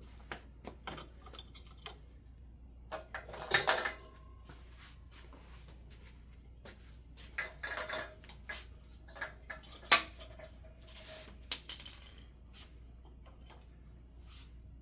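Scattered metal clinks, scrapes and knocks as a ceiling fan's wiring is unwound from its mounting bracket and the fan is taken down. There is a louder clatter about three and a half seconds in and a single sharp knock about ten seconds in.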